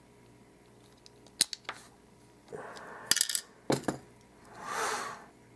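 Small metal clicks and clinks from an Abus Titalium euro lock cylinder and its tools being handled while it is taken apart. There is a short scrape about two and a half seconds in, then a quick cluster of sharp clicks, and a soft rushing noise near the end.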